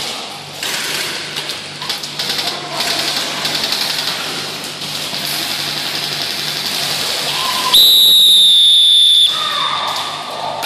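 A referee's whistle blown in one long, steady, shrill blast of about a second and a half near the end, loud against the arena's noisy background of scattered clicks.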